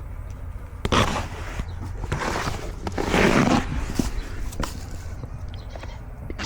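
Rustling and scraping close to a camera strapped to a goat as she moves: three noisy bursts about a second apart, with a few sharp clicks over a steady low rumble.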